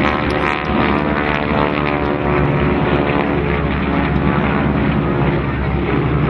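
Propeller engines of a formation of Harvard aircraft running steadily in flight, several engine tones layered together.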